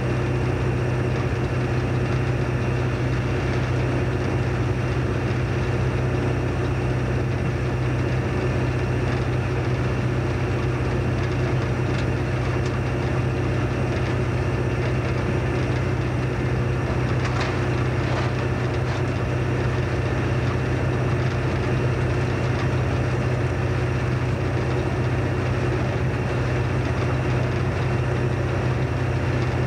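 Diesel locomotive engine running steadily, heard from inside the cab, with a constant drone and the noise of the train on the rails. A brief clatter of knocks comes about seventeen seconds in.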